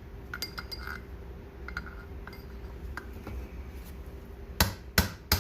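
Light metal-on-metal clinks, then three sharp metallic knocks in quick succession near the end, as a steel sleeve is worked off the shaft of a skid-steer drive sheave.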